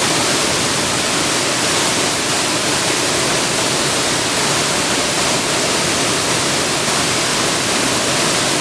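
Turtleback Falls rushing loudly and steadily, an even wash of falling water with no other events.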